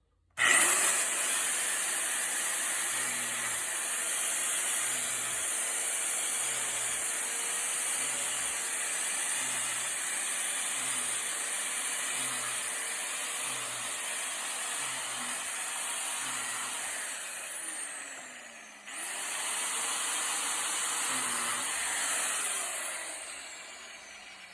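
Angle grinder used as a high-speed drill, running steadily with a high whine while boring plug holes in a log. About 17 s in it is switched off and winds down with a falling whine, then starts again about two seconds later and winds down once more near the end.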